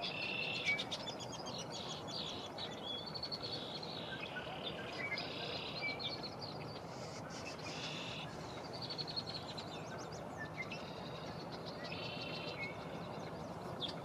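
Small songbirds chirping and trilling again and again in high, quick runs, over a steady background rush.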